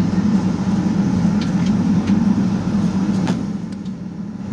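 Cabin noise inside a Boeing 757-200 taxiing: the steady low hum of the running engines with rumble from the wheels over the taxiway and a few faint clicks. The noise eases slightly near the end.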